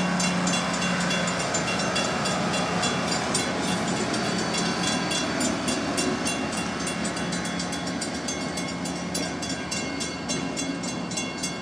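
Great Lakes Central Railroad diesel locomotive running past slowly with a steady low engine drone, while a grade-crossing warning bell rings in rapid, even strikes.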